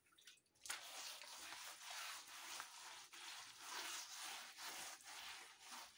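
Faint, repeated rubbing strokes of a hand smearing wet mud-and-cow-dung plaster across a wall, starting about a second in.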